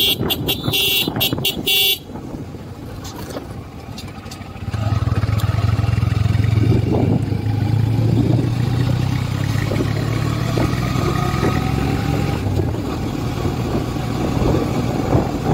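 Honda SP motorcycle running along the road, heard from the bike with wind rush on the microphone. A shrill, choppy high-pitched sound in the first two seconds, then quieter, and a strong steady low engine drone from about five seconds in.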